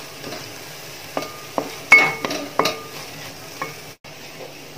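Wooden spatula stirring sliced onions and green chillies frying in oil in an aluminium pot: a soft sizzle and scraping, with several knocks of the spatula against the pot that ring briefly, mostly between one and three seconds in. The sound cuts out for an instant near the end.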